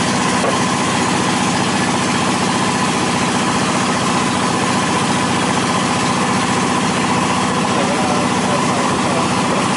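Inboard engine of a Thai hua tong longtail boat running steadily at cruising speed, loud and close as heard from on board.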